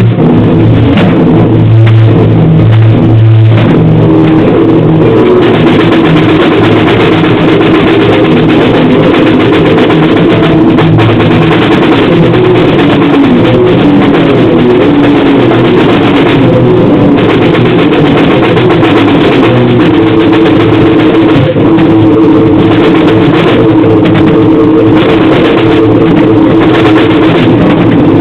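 Loud, heavily distorted chaotic grindcore/noise music with drums: a dense, unbroken wall of sound.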